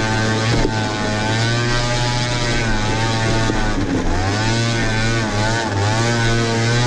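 Small motorbike engine running under throttle, its revs dropping and picking up again a few times around the middle, with wind noise on the microphone.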